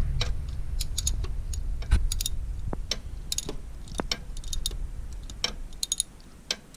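Light metallic clicks and clinks of hand tools, a socket set and wrench being handled, coming in short irregular groups over a low rumble that fades out near the end.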